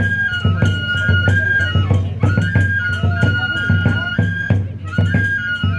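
Oni-kenbai festival music: a Japanese transverse bamboo flute repeating a short high phrase over steady taiko drum beats and regular clashes of small hand cymbals.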